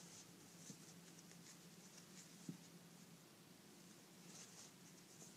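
Near silence, with faint scratchy rustles of yarn being drawn through stitches by a metal crochet hook, a small tick about two and a half seconds in, and a faint steady hum.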